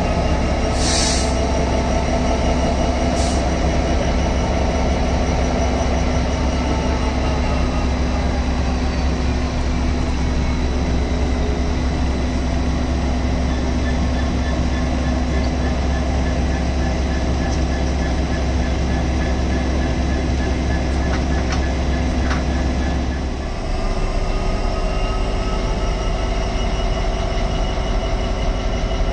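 A Class 66 diesel locomotive with its EMD two-stroke V12 and a Class 73/9 electro-diesel, coupled together and idling: a steady low engine drone with a constant hum above it and a couple of light clicks near the start. About 23 seconds in, the drone drops lower and carries on as a steady idle.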